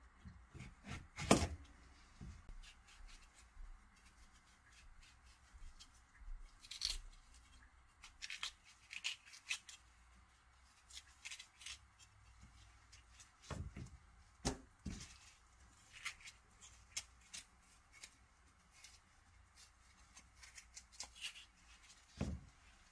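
Kitchen knife cutting a cucumber lengthwise on a plastic cutting board and scraping out its seeds: crisp slicing and scraping ticks with scattered knocks of the blade on the board, the loudest about a second in.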